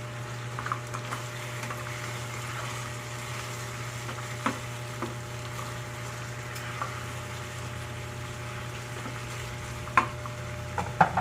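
Chicken sizzling as it fries in a pan, a steady hiss with a few sharp clinks of a utensil against the pan, and a steady low hum underneath.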